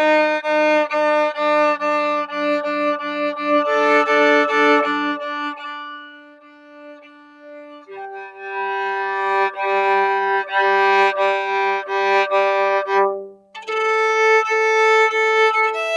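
Violin open strings bowed in repeated short strokes, mostly two strings sounding together, while the instrument is tuned against an electronic tuner. Midway the playing thins to one quieter held note as a string is brought back to pitch, then the double stops resume, with a brief break near the end.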